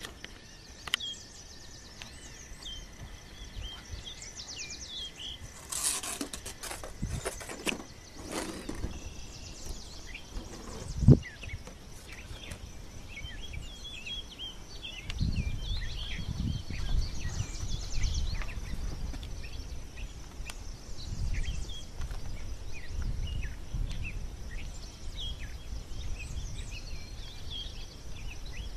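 Outdoor ambience of small birds chirping and calling over a steady high insect buzz. A cluster of rustling clicks comes about six to nine seconds in, and one sharp knock, the loudest sound, about eleven seconds in. From about fifteen seconds in there is a low rumble of wind on the microphone.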